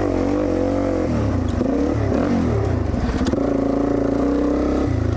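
Dirt bike engine running under a rider on a trail, its pitch rising and falling with the throttle, then holding steadier near the end.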